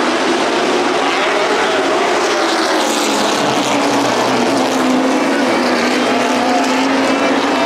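Several Sportsman-class stock car engines running hard together in a race. Their pitches rise and fall as the cars lap the track.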